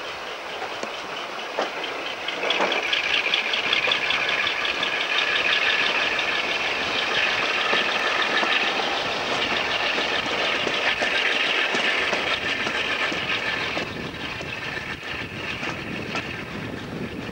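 Maybach-engined diesel-hydraulic locomotive working under load at the head of a passenger train, heard from an open window of the coach just behind, mixed with the wheels running on the rails. It grows louder about two and a half seconds in and eases off near the end.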